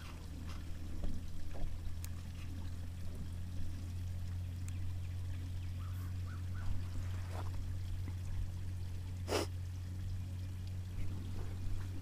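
A steady low hum with faint trickling water over it, and a brief sharp sound about nine seconds in.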